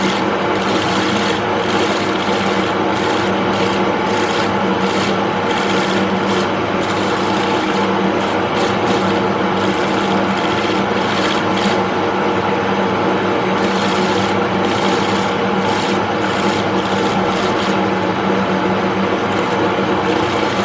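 Wood lathe motor running steadily while a turning tool cuts spinning mahogany, the hiss of the cut coming and going in irregular strokes.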